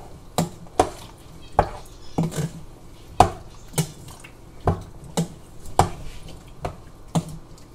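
A spoon stirring soup in an Instant Pot's stainless steel inner pot, knocking against the pot's sides and bottom in uneven clinks, about one or two a second.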